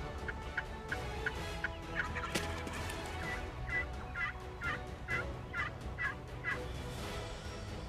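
Wild turkeys calling: a run of short, evenly spaced notes, then from about three seconds in a louder series of about eight notes, each roughly half a second apart.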